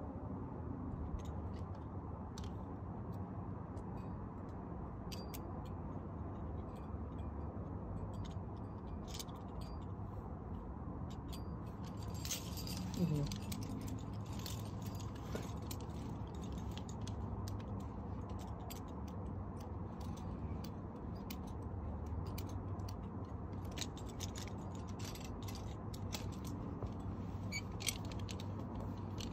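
Metal climbing gear on a harness (carabiners and protection) clinking and jingling in scattered small clicks as the climber moves, over a steady low rushing background.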